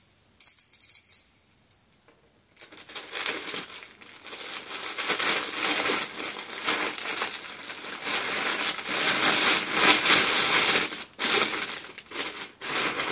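Plastic poly mailer bag crinkling and rustling as it is torn open by hand and its contents pulled out, in uneven swells. A thin high tone sounds during the first second or so.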